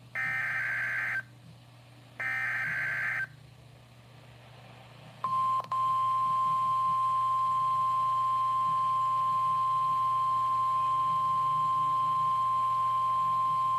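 NOAA Weather Radio EAS/SAME header data bursts, the second and third of the three repeats, each a harsh warbling screech about a second long with a second's gap between them. After a pause of about two seconds, the steady 1050 Hz warning alarm tone comes on, drops out for an instant just after it starts, and then holds.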